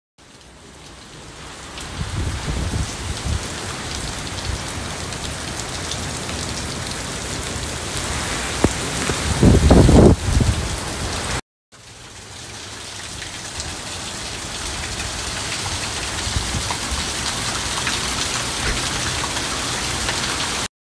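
Heavy hurricane rain pouring steadily, with gusts of wind buffeting the phone's microphone in deep rumbles, loudest about ten seconds in. The sound drops out for a moment in the middle at a cut, then the rain and wind carry on.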